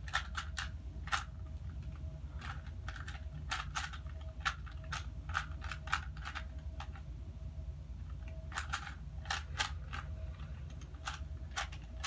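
Plastic 3x3 Rubik's cube being turned fast by hand: quick, irregular runs of clicks as its layers snap round, with short pauses between runs, while the cube is being scrambled.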